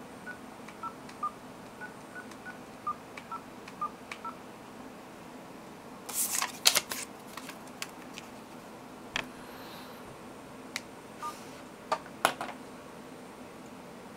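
Keypad beeps from a Samsung Omnia II mobile phone as a phone number is dialled: about ten short, evenly spaced tones over the first four seconds. Then come clicks and knocks of the phone being handled, loudest a couple of seconds later and again near the end.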